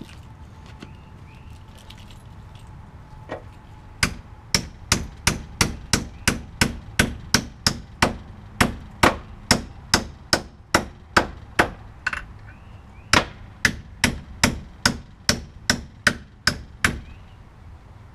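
Hammer striking metal: a steady run of sharp blows, about three a second, starting about four seconds in, with a short break about two-thirds of the way through.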